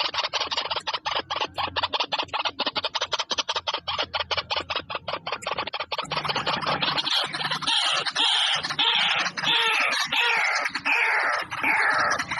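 Birds calling: a fast run of sharp clicking notes, then from about halfway repeated harsh calls that fall in pitch.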